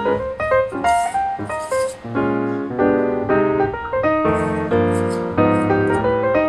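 Background music on a piano-like keyboard, with quick changing notes and chords.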